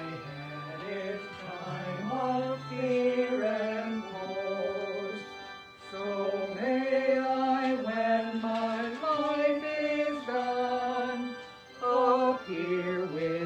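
A hymn being sung with musical accompaniment: long held notes stepping up and down in pitch, with a short pause between phrases near the end.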